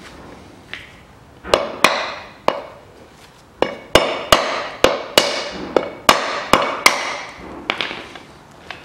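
Hammer striking the metal housing of a Land Rover Discovery 3 spare-wheel winch, about fifteen sharp metallic blows with a short ring after each, starting about a second and a half in at an uneven pace. The blows press the two halves of the winch housing together to close the gap between them.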